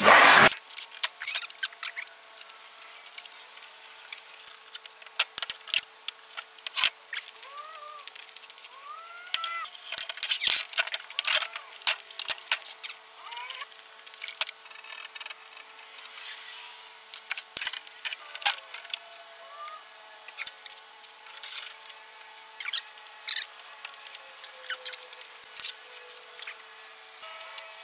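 Sped-up timelapse audio of bench work: a rapid scatter of clicks and knocks from plywood and bar clamps being handled, mixed with short squeaky chirps, all shifted high in pitch with no low sound left.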